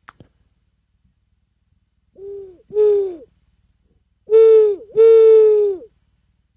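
A small painted owl whistle blown in imitation of an owl's hoot. It gives two double hoots, each a short note then a longer held one that drops away at its end, with the second pair louder than the first.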